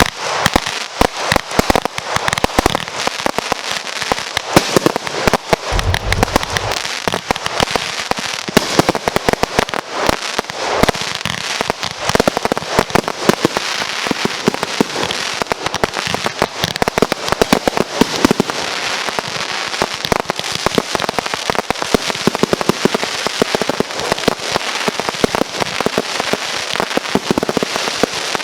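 Fireworks going off in a dense, continuous run of sharp pops and crackles for the whole stretch, with a brief low rumble about six seconds in.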